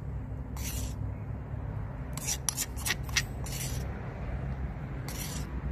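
Several short scraping and rubbing strokes of a kitchen utensil working food, in uneven bunches, over a steady low rumble.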